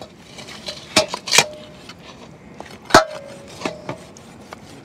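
Machete chopping into a pig's head in a steel basin: three sharp chops, then two lighter ones, most followed by a short metallic ring.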